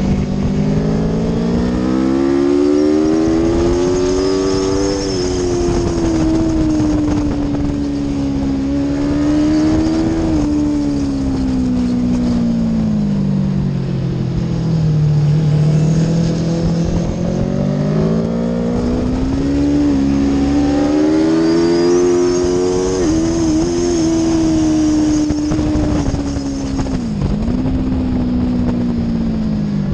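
Onboard sound of an Aprilia Tuono V4's V4 engine at track speed, its note repeatedly rising under acceleration and falling as the rider slows for corners, with a brief sharp dip near the end.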